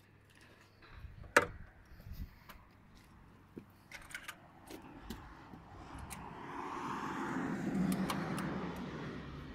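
Clicks and knocks from handling the wire feeder and torch connector of a CO2 MIG welder, with one sharp knock about a second and a half in. In the second half a passing vehicle swells up and fades.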